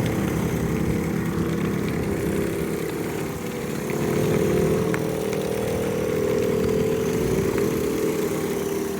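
Small engines of motorised bumper boats running steadily in a low, even drone, getting slightly louder about four seconds in.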